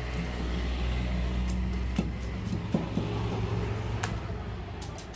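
A large knife scraping scales off a whole rohu fish on a wooden chopping block, with a few sharp knocks of the blade or fish on the wood about two, three and four seconds in. A steady low rumble runs underneath and fades out partway through.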